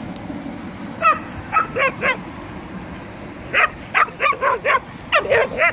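Stray dogs barking: about a dozen short barks in three quick runs, the first starting about a second in.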